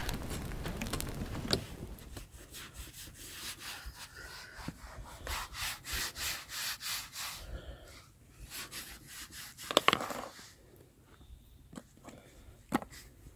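Bread dough being kneaded by hand in a bowl: a run of rhythmic rubbing and pressing strokes, strongest in the middle, with a sharper knock about ten seconds in.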